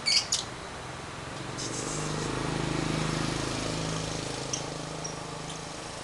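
Caged lovebirds giving two sharp, high chirps right at the start, then a few faint chirps later. A low engine hum swells and fades under them through the middle.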